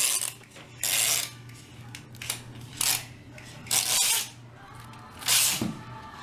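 Clear adhesive tape being pulled off its roll in short, jerky rips, about six pulls a second or so apart.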